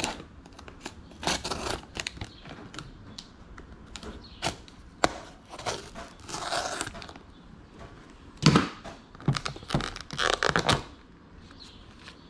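Scissors cutting through a stiff plastic clamshell blister pack in irregular snips, with plastic crackling as the pack is pulled open; the loudest crackles and clicks come in the second half.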